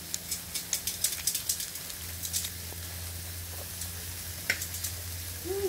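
Meat sizzling on a barbecue grill, fat crackling and popping, with the pops thickest in the first couple of seconds, over a low steady hum.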